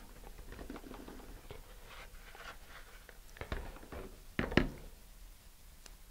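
Fingers rubbing an adhesive decal down onto a model rocket's body, soft rustling and scuffing, followed by a few light knocks on the work surface, the loudest pair about four and a half seconds in.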